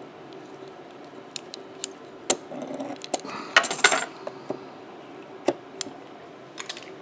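Scattered light clicks and small metal clinks from a steel whip finisher being worked and handled at a fly-tying vice, with a denser run of clicks a little past the middle. A faint steady hum lies under it.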